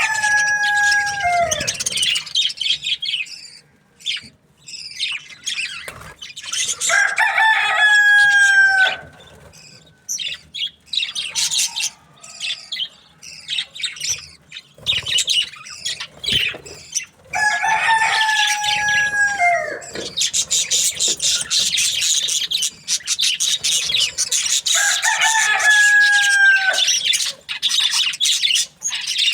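A rooster crows four times. Each crow lasts about two seconds and drops in pitch at the end. Behind it runs busy, high chirping and chattering of budgerigars, densest in the second half.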